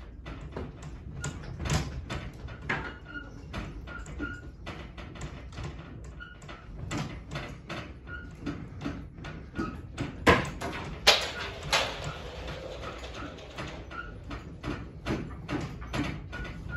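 A room rattling and creaking as the building shakes in an earthquake: a dense, uneven run of knocks and clicks from furniture and fittings over a low rumble, with two loud bangs about ten and eleven seconds in.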